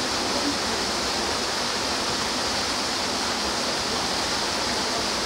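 A steady, even rushing noise with no separate knocks or calls.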